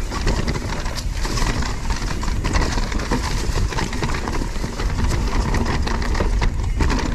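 Husqvarna Mountain Cross MC4 electric mountain bike ridden fast down a dirt trail: steady rumble of the tyres rolling over dirt and leaves, with frequent clicks and rattles from the bike jolting over small bumps.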